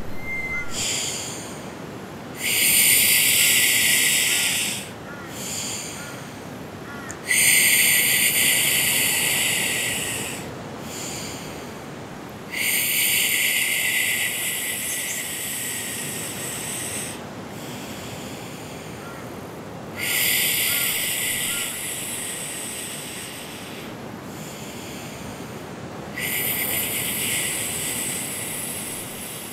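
A person's long, hissing inhales drawn through puckered lips, five in all, each lasting a few seconds, starting sharply and fading, with quieter pauses between: a kundalini pranayama breath of inhaling through the lips and exhaling through the nose.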